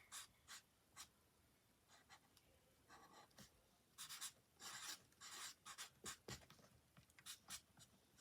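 Faint hand-writing on paper: short scratchy strokes in quick runs with pauses, sparse at first and busier from about halfway through.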